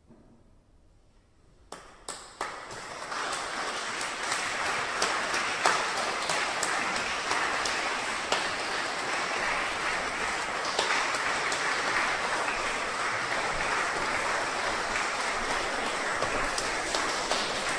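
After a brief hush, a few scattered claps about two seconds in swell into steady audience applause.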